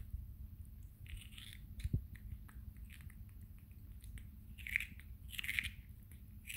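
Baby macaque biting and chewing a piece of raw cucumber in short wet crunches, the loudest bites coming about five seconds in.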